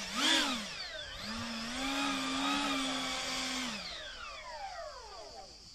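Ducted fans on the rotor tips of a radio-controlled Focke-Wulf Triebflügel model whining as they drive the rotor round. The pitch dips and rises twice in the first second and a half, holds steady, then falls away as the fans wind down near the end.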